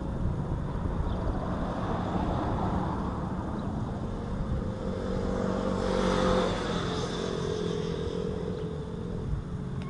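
A motor vehicle's engine running steadily. Its sound swells louder and fades again about six seconds in.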